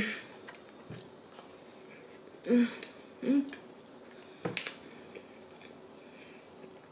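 A person chewing food with soft wet mouth sounds. There are two short hums about two and a half and three and a half seconds in, and a sharp click about four and a half seconds in.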